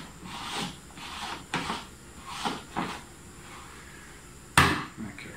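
Handling noises as a container of wine must is covered over: several short rustles and scrapes, then one sharp knock a little over four and a half seconds in.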